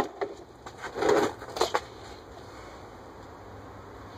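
A sharp click, then a few short knocks and clunks, loudest about a second in, from the plastic housing of a small inverter generator being handled and tipped on its side to drain its oil.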